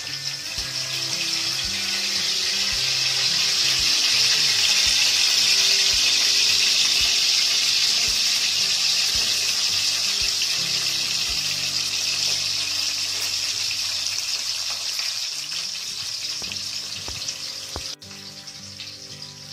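Hot oil sizzling in a kadai as tempering ingredients and then sliced onions are dropped in, a loud, even hiss that peaks midway and slowly fades.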